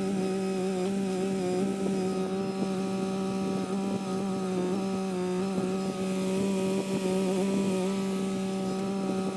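Kymron XH20D mini-excavator's engine running at a steady high speed, its pitch sagging briefly now and then as the hydraulics take load while it digs out a tree stump.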